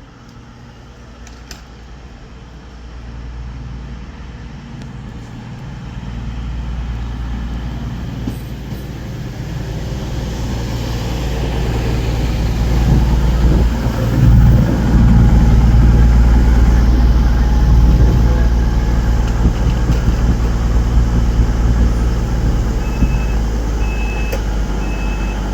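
A train approaching along the platform, its low rumble growing steadily louder to a peak about halfway through and staying loud as it runs past. Three short high beeps sound near the end.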